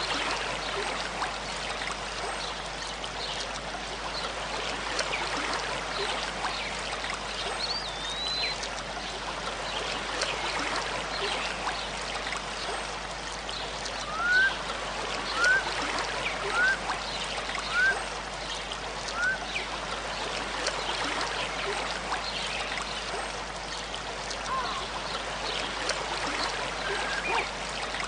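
River or mountain stream flowing and splashing in a steady rush of water. Partway through, five short rising chirps come about a second apart over the water.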